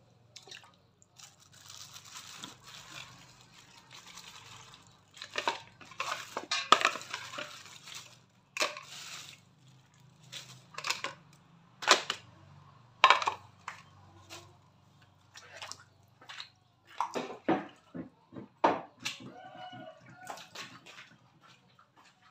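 Kitchen clatter: irregular sharp clinks and knocks of metal pots, basins and utensils, with a stretch of running or splashing water in the first few seconds.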